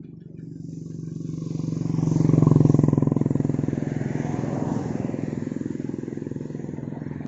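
Royal Enfield 350's single-cylinder engine running, growing louder to a peak about two and a half seconds in and then holding steady with a fast, even beat.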